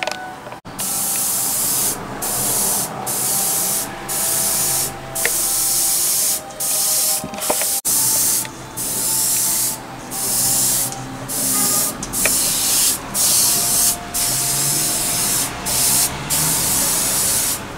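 Sata Graph3 airbrush with a 0.2 mm nozzle spraying paint in short hissing bursts, stopping and starting about once a second.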